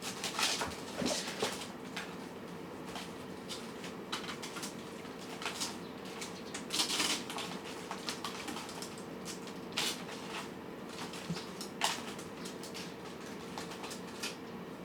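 Cats eating, with irregular small crunches and clicks of chewing and moving around the food, a few louder ones near the start and around the middle, over a steady faint hum.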